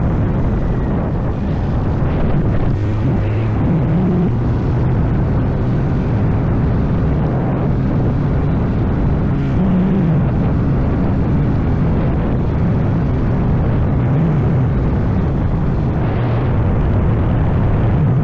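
CFMoto Papio's small single-cylinder engine running, its pitch rising and falling a little every few seconds, over a steady rush of noise.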